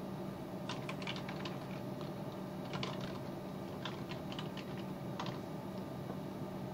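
Computer keyboard typing: irregular runs of key clicks that stop about five seconds in, over a steady low hum.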